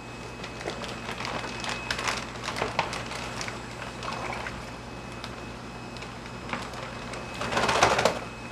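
Plastic fish transport bag crinkling and rustling while hands handle it in a tub of water, with small splashes and drips; a louder rush of rustling and sloshing water about seven and a half seconds in.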